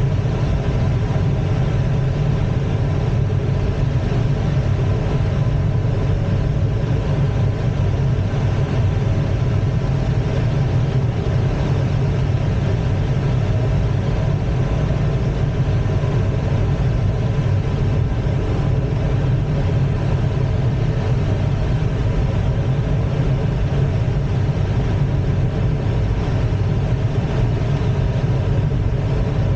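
Steady rush of airflow in the cockpit of an ASK-21 two-seat glider in flight: an even, unchanging low rumble with a faint steady hum above it.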